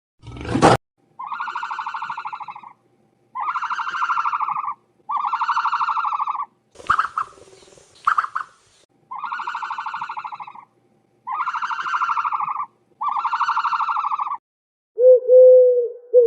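An animal call repeated seven times in a steady rhythm, each a buzzy, wavering cry of over a second. Two short sharp sounds come midway, and a shorter, lower call follows near the end.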